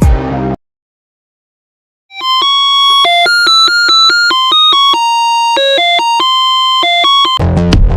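Musical doorbell chip playing a short electronic tune through a small speaker: about five seconds of quick, clean beeping notes stepping up and down in pitch.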